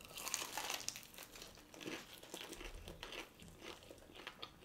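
Crispy fried chicken crust crunching as it is bitten into and chewed, densest in the first second, then smaller scattered crackles.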